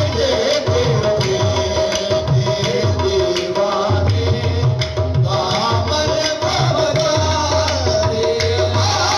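Qawwali sung by a man into a microphone over a steady held harmonium tone, with hand drums beating a fast rhythm of deep strokes, amplified through a PA.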